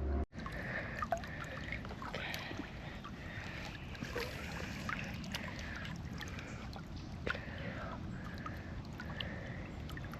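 River water moving and lightly splashing, with scattered small clicks and knocks.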